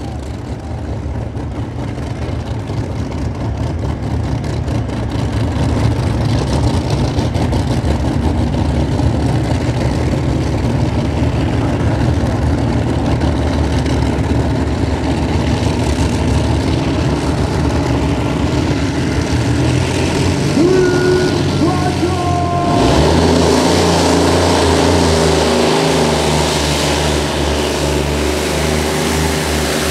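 Multi-engine pulling tractor with Allison V12 aircraft engines idling with a steady deep rumble. About two-thirds of the way through, the engine note steps up and grows louder as the tractor sets off down the pulling track.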